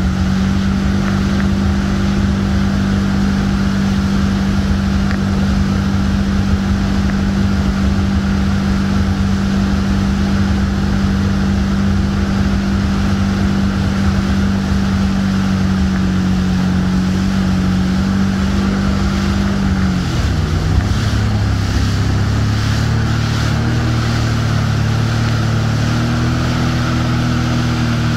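Speedboat engine running at speed while towing, over the rushing noise of its churning wake. About two-thirds of the way through, the engine's pitch drops smoothly and carries on lower, rising slightly again near the end.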